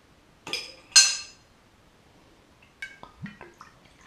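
Swing-top glass bottle being opened: two sharp, ringing glass clinks about half a second apart, the second the louder, as the stopper is flipped off. They are followed near the end by a few small clicks and a dull knock as the bottle is handled and tipped to pour.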